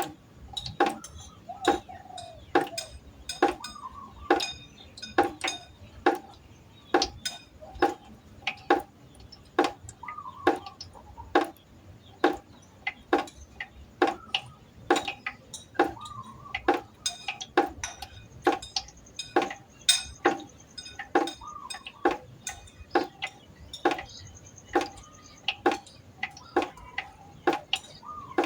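Water droplets dripping into a pot of water. Each drop is a sharp plink with a short tone that glides upward, falling about two a second in a steady, slightly uneven rhythm.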